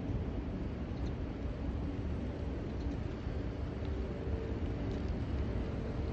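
Steady low wind rumble on a handlebar-mounted phone's microphone while riding a bicycle, mixed with tyre and road noise; a faint steady hum comes in about halfway through.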